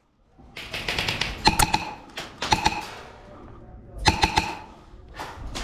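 Airsoft guns firing in short bursts of rapid clicking shots, about four bursts.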